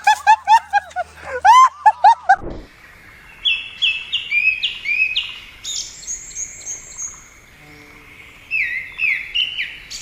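A dog yapping in a quick run of short yelps that cut off abruptly about two and a half seconds in. Then a songbird sings a series of short, high chirps, each falling in pitch.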